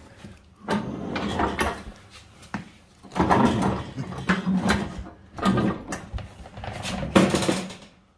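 Steel mower deck of a John Deere X320 being shoved back and forth under the tractor: scraping slides and metal knocks in several bursts a second or two apart as the deck catches on the frame.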